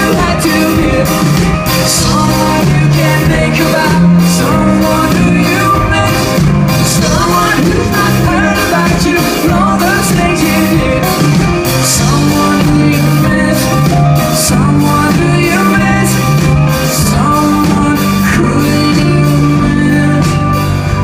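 Pop-rock band playing live with a singer, drums keeping a steady beat under bass, guitar and vocals.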